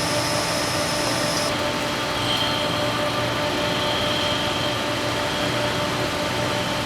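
Steady mechanical hum with several held tones, like a fan or machinery running. The high hiss drops away about a second and a half in.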